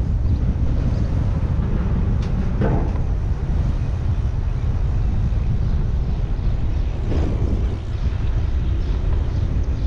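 Wind buffeting a helmet-mounted action camera's microphone while cycling: a loud, steady low rumble. Two brief rougher noises come through it, about three seconds in and about seven seconds in.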